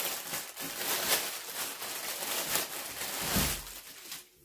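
Clear plastic poly bag crinkling and rustling as it is pulled open and a cap is worked out of it, with a low thump about three and a half seconds in.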